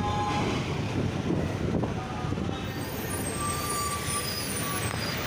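City traffic heard from inside a moving vehicle: a steady rumble of engine and road noise, with a few short, faint tones in the second half.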